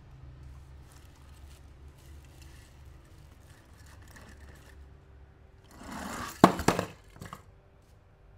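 Toy packaging being handled and torn open: faint rustling, then about six seconds in a short loud tear with a few sharp snaps.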